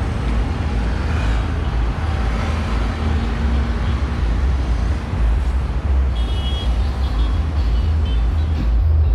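City street traffic: vehicle engines running with a steady deep rumble and road noise, and a brief high-pitched tone about six seconds in.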